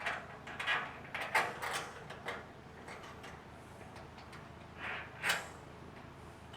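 Small metal parts clicking and scraping in short bursts, a cluster in the first couple of seconds and two more about five seconds in, as a nut and the trunk handle hardware are worked into place by hand.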